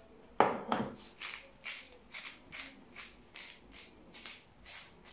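A hand-twisted salt and pepper grinder being turned over raw chicken, a gritty grinding stroke about three times a second. One louder knock about half a second in.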